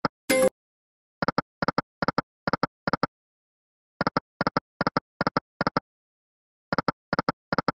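Reel-stop sound effects of the EGT 100 Cats video slot during free spins: short electronic double ticks, five in quick succession about two and a half a second, one for each reel landing. They come in runs, one run per spin, with silence between the spins.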